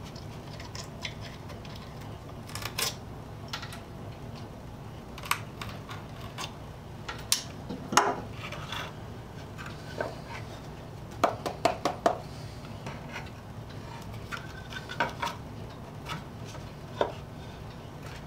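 Irregular wooden knocks and clicks as the boards of an old wooden birdhouse are handled and worked on a wooden workbench, a cluster of sharper knocks about eight seconds in and again around eleven to twelve seconds in, over a low steady hum.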